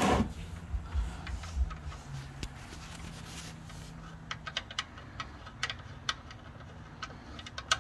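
Oil drain plug being unscrewed by hand from a truck's oil pan: a few dull knocks at first, then light, irregular metallic clicks and ticks, about two or three a second, as the plug turns out just before the oil starts dripping.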